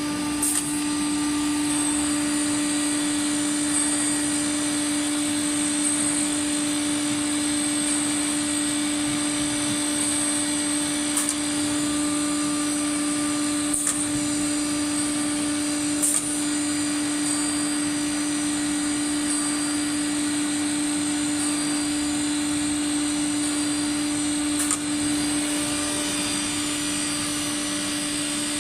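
CNC nesting router running steadily: a strong unchanging tone with a hiss above it, broken by a few short clicks at uneven intervals.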